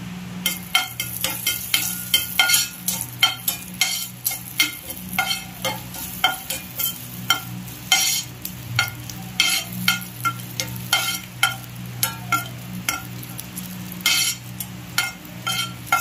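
Metal spatula stirring cashew nuts frying in a little oil in an iron kadai, scraping and clinking against the pan about two to three times a second.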